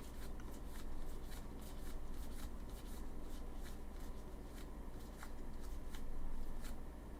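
Baseball trading cards being flipped through and slid against one another in the hand: soft, irregular card clicks and rustles.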